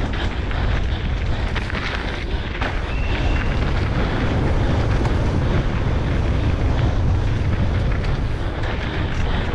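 Enduro motorcycle ridden hard over a rough dirt trail: the engine running under continuous, heavy wind rumble on the bike-mounted camera's microphone.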